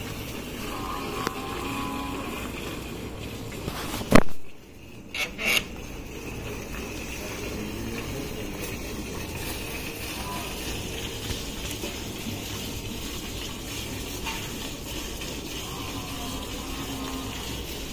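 Milk streams from hand-milking a cow hissing into a steel pail. A sharp knock comes about four seconds in, the loudest sound, followed by two smaller ones.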